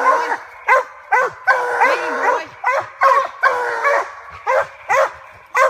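Treeing Walker coonhounds barking treed: a steady run of short chops mixed with longer drawn-out bawls, about two a second. This is the sign that the hounds have a raccoon up the tree.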